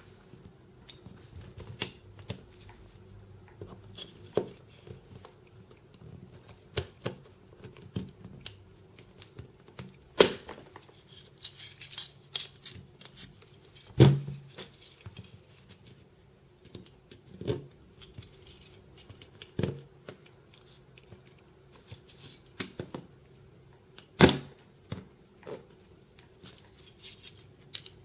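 Pliers and a Swiss Army knife tool prying, cutting and snapping at the black plastic tower on a smoke detector's circuit board: scattered sharp clicks and cracks of plastic, the loudest about ten, fourteen and twenty-four seconds in.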